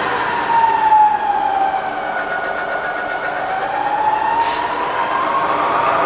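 Bridgeport milling machine's variable-speed head running, its whine dipping in pitch over the first three seconds and then rising back up as the speed control is turned. A light tick about four and a half seconds in.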